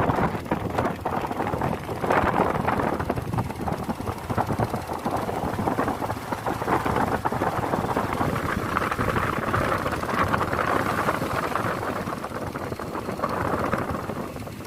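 Wind rushing over the microphone with engine and road noise from a moving vehicle, rising and falling in gusts.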